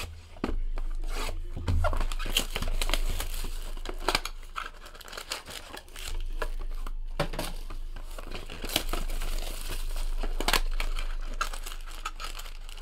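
Cardboard box of 2014 Topps Finest Football cards being torn open by hand, with repeated sharp tearing scrapes and the rustle and crinkle of the inner boxes and wrapped packs being handled. A low steady hum runs underneath.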